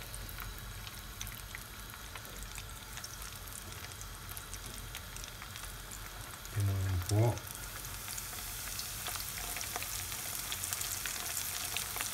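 Hot oil sizzling and crackling in a frying pan as small flour-coated latterini (sand smelt) fry. The sizzle grows stronger from about two-thirds of the way in, as another handful of floured fish goes into the oil. A short vocal sound is heard a little past halfway.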